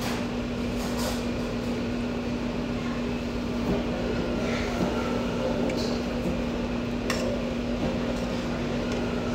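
Eating at the table: a few short clicks of utensils against dishes over a steady low electrical hum.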